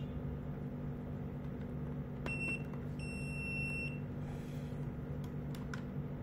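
Video intercom giving two electronic beeps as the doorbell unit is connected to the monitor and powers up. The first beep is short, the second lasts about a second, and a few light clicks follow over a steady low hum.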